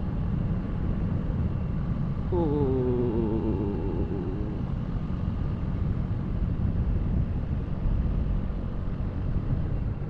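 Motorcycle on the move: steady engine and wind rumble on an action camera. About two seconds in, an engine note drops in pitch over about two seconds as it slows.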